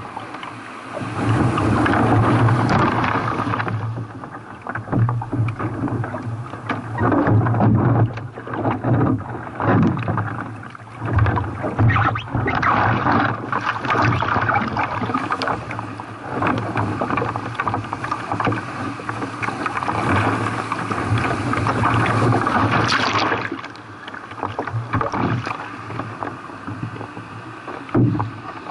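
Sea water rushing and splashing around a sea kayak paddled through surf. The sound surges louder and softer every few seconds as waves pass, with sharper splashes in between.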